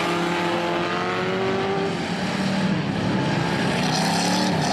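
Several stock cars' engines racing on a dirt oval, their overlapping notes rising and falling as the cars accelerate and pass close by.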